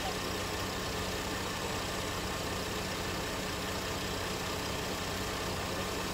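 A steady, low engine hum like a vehicle idling, under an even rushing noise that holds constant throughout.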